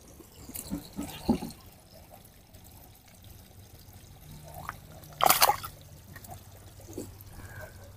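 Water trickling and splashing at the edge of a fishing pond, with one short, louder splash-like burst about five seconds in.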